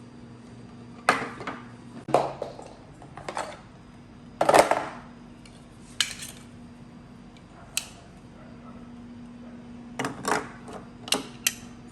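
Dishes and utensils being handled: a string of separate knocks and clinks, the loudest about four and a half seconds in and a quick cluster near the end.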